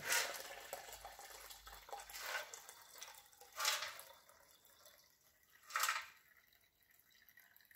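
Nitro thinner draining from a steel moped fuel tank into a plastic beaker: a pouring stream that tapers off to a trickle, with three short louder spurts as it empties.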